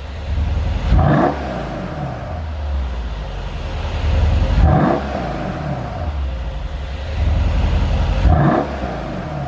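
Mercedes-Benz SL63 AMG's twin-turbo V8 exhaust, tuned for pops and crackles on the overrun. The engine is revved from idle in three quick throttle blips, about a second in, near the middle and near the end, each time falling back toward idle.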